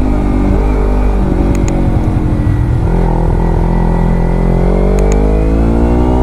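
A motor running steadily, its pitch rising near the end.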